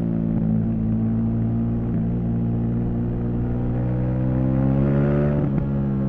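KTM 790 Duke's parallel-twin engine pulling under acceleration, its pitch rising steadily for a few seconds, then dropping sharply with an upshift about five and a half seconds in before pulling on.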